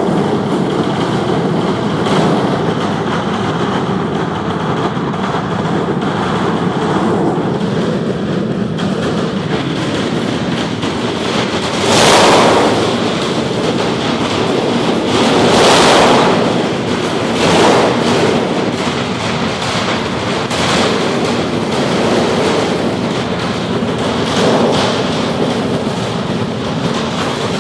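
Aircraft engine running, a loud steady rushing noise that swells louder for a moment about twelve and again about sixteen seconds in.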